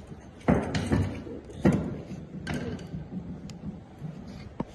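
Knocks and clanks of a tool working a bolt loose on a small electric motor's housing: four sharp knocks in the first two and a half seconds, then a single sharp click near the end.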